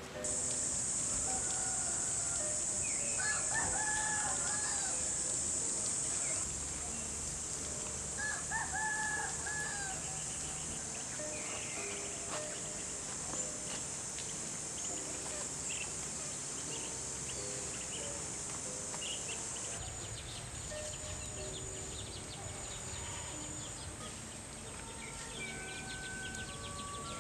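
A rooster crowing twice, about three and eight seconds in, over a steady high-pitched insect drone.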